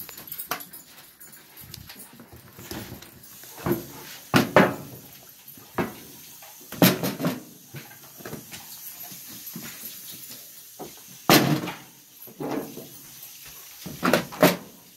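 Dogs whimpering and barking in about six short, loud outbursts, the excited noise of dogs waiting to be fed.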